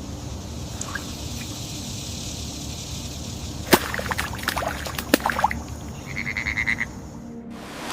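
Rainforest soundscape: a steady rush of flowing water, with a cluster of sharp clicks and snaps a little under four seconds in, then a short, rapidly pulsed chirping call about six seconds in. It drops out abruptly just before the end.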